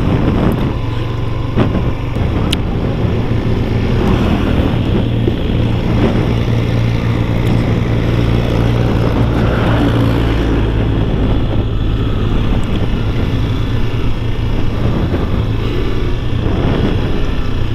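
Motorcycle engine running steadily at low road speed, heard from the rider's seat, mixed with wind and road noise on the microphone.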